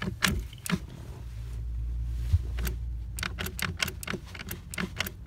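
Irregular sharp clicks and small plastic snaps of hand work at the clutch pedal, as zip ties are snipped off the compressed helper spring, over a low steady rumble.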